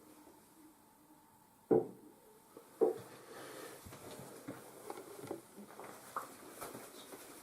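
Hands handling a plastic toy washing machine: two sharp knocks about a second apart, then a run of lighter clicks and rustles.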